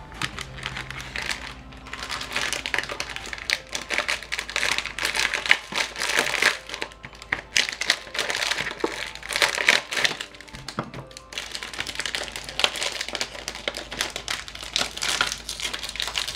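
Snack packaging crinkling in irregular bursts as it is handled and opened.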